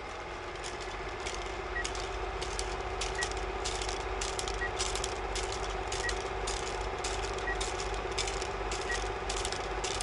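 Underwater sound from a submerged camera: a steady low hum with dense crackling clicks from churning water and bubbles, and a faint short beep about every second and a half.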